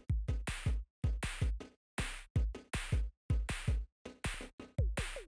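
Electronic background music built on a drum-machine beat: deep kick-drum thumps and sharp noisy hits in a steady, repeating rhythm, several strokes a second, with brief gaps between phrases.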